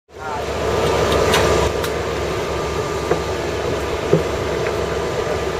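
Steady machinery drone, a low rumble with a few thin steady tones, broken by a few light clicks and knocks.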